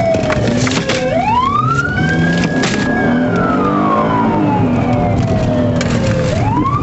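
Police car siren on a slow wail: it climbs quickly about a second in, holds high briefly, then falls slowly, and climbs again near the end. Underneath runs the engine and road noise of the pursuing patrol car.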